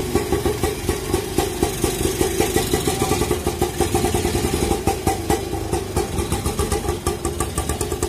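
Engine of a three-wheeled bemo idling, with a rapid, even beat.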